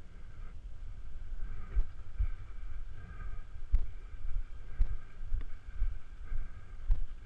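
Motocross bike engine idling, with wind buffeting the helmet camera's microphone in gusts.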